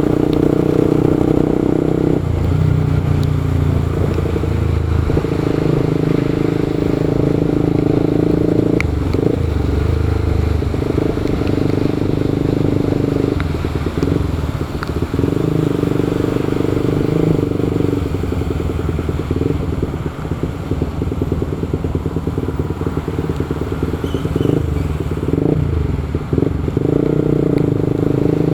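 Motorcycle engine running under way, its note shifting up and down every few seconds.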